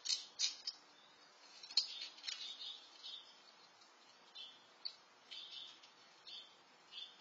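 Small birds chirping: short, high calls in irregular bursts, with a sharp click about two seconds in.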